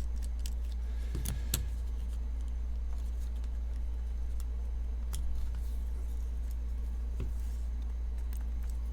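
A few small metallic clicks and taps from folding-knife parts and tools being handled while the pivot is worked loose. Under them runs a steady low hum.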